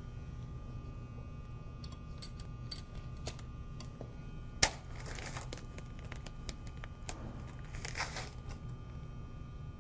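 Quiet handling sounds: plastic bags of pennies crinkling in short rustles, with a sharp knock about halfway through and a few faint clicks, over a steady low hum.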